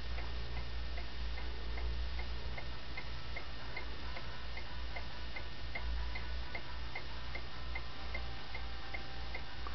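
Home-built brass Isaac's clock movement ticking steadily, about two to three ticks a second, over a low steady hum.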